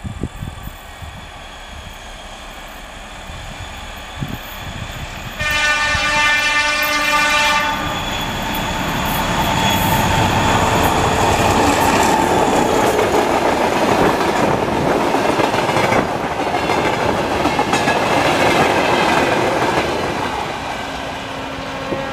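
TEM2 diesel locomotive approaching and sounding its horn, a chord of several tones held for about two seconds, then passing close with its diesel engine running, followed by tank cars rolling by with wheels clacking over the rail joints. The noise eases off near the end as the train moves away.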